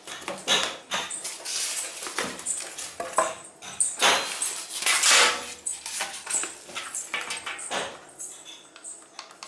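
Styrofoam packing inserts squeaking and rubbing, and plastic wrap rustling, as a mini sewing machine is pulled out of its foam packaging. Scattered light clicks and knocks come through, with the busiest handling about four to five seconds in.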